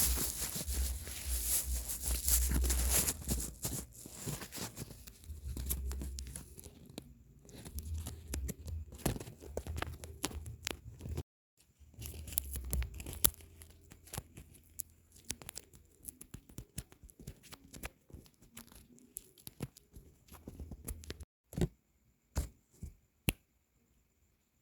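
Paper and tape being handled: crackling, crinkling and tearing with a low handling rumble, a short break about eleven seconds in, then only a few separate taps near the end.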